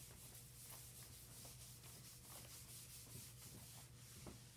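Whiteboard eraser wiping across a whiteboard: faint, quick back-and-forth swishes in an even rhythm, over a steady low hum.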